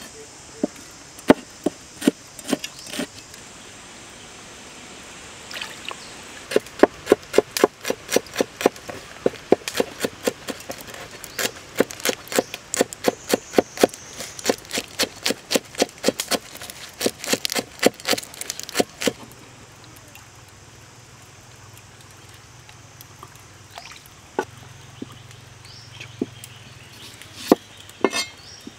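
Large kitchen knife chopping on a wooden cutting board: a few single cuts at first, then a long run of quick, even chopping strokes, several a second, through a bunch of green onions, ending with a few scattered knocks.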